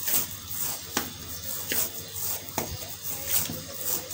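Hands pressing and turning a soft ball of oiled methi paratha dough in a steel plate, a soft knock each time the dough is pushed down, roughly once a second.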